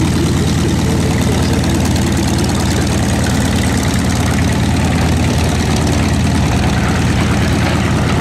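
Grumman FM-2 Wildcat's Wright R-1820 Cyclone nine-cylinder radial engine running steadily at low power as the fighter taxis.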